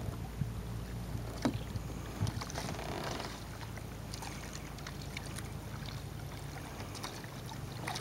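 Kayak paddle strokes in calm water: the blades dip and drip with a few soft splashes and clicks over a low steady rumble.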